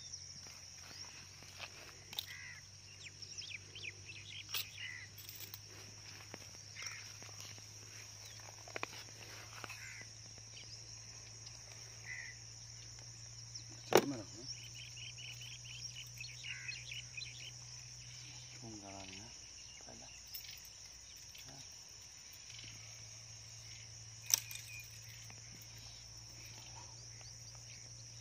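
Steady high chirring of crickets with crows cawing now and then. Two sharp knocks stand out, the louder about halfway through, under a low steady hum.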